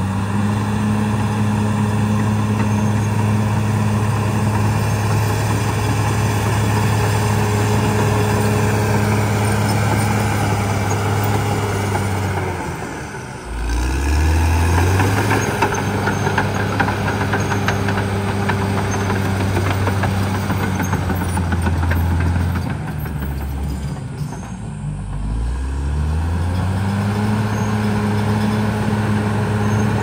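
Caterpillar D6R XL bulldozer's diesel engine working hard as the dozer pushes soil, holding a steady note. Twice, about 13 seconds in and again around 24 seconds, the revs drop away and then climb back up as the machine changes direction.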